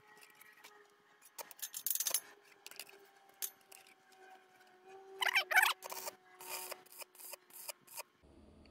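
Stick (arc) welding on steel square tubing: the arc crackles and sizzles in short, irregular bursts as the electrode is struck and run at the joint.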